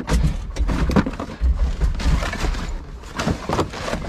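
Rustling and knocking of gear being rummaged through by hand: plastic bags crinkling and boxes and objects being shifted and bumped, with repeated dull thumps.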